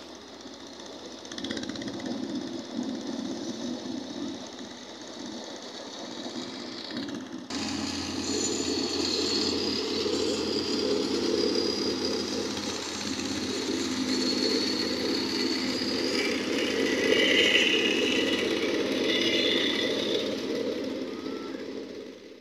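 Petrol plate compactors running and vibrating as they tamp a sand base, a steady engine drone with a rattling pulse, jumping louder about seven seconds in.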